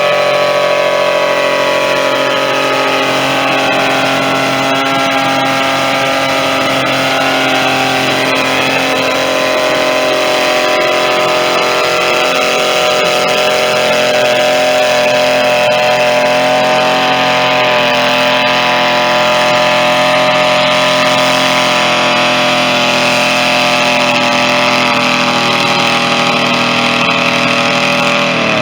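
Tractor engine running hard at a steady high speed, its pitch sagging slightly over the first several seconds and then holding.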